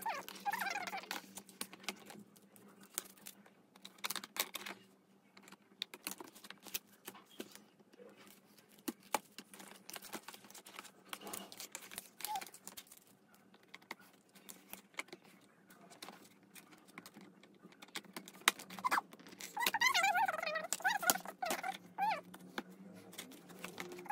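Hard plastic parts of a corner shelf rack clicking and knocking as blue plastic connectors are pushed into the grey shelf panels, in a scatter of short irregular clicks. A squeaky, wavering sound comes in near the end.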